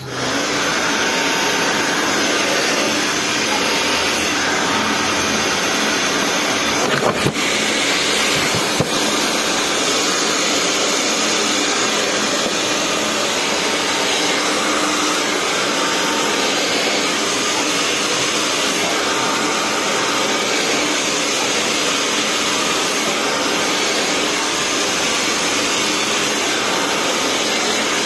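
Handheld hair dryer switched on and running steadily, blowing air during a blow-dry. A couple of brief knocks sound about 7 and 9 seconds in.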